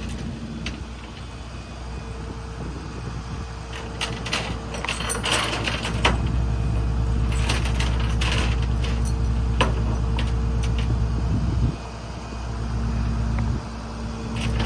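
Rollback tow truck's engine running steadily, with scattered metallic clanks and rattles of chain and hooks. The engine note drops briefly twice near the end.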